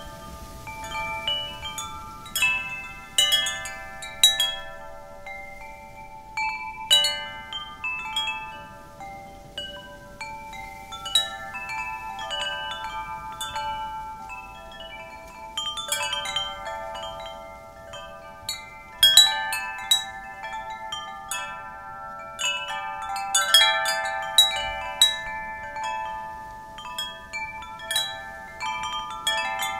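Wind chimes ringing in the wind: irregular strikes of several tuned chimes that overlap and ring on, coming in livelier clusters every few seconds.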